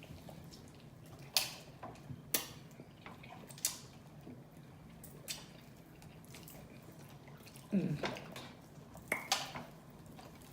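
Eating sounds over a fried-chicken meal: a handful of sharp, isolated clicks and smacks spread over the stretch, against a low steady background.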